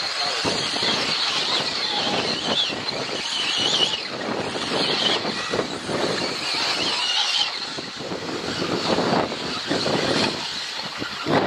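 Radio-controlled 4WD off-road racing cars running laps, their electric motors whining up and down in pitch as they speed up and slow down.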